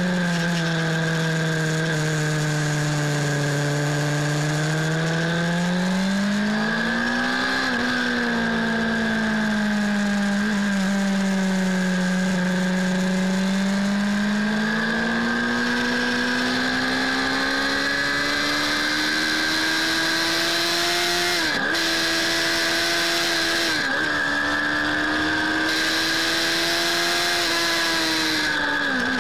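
Suzuki Bandit 600's inline-four engine under way on a circuit, heard from a handlebar-mounted camera. It holds fairly low, steady revs through a long bend, swells briefly, then climbs steadily onto the straight, with three quick dips in revs in the last third. Wind noise runs over it.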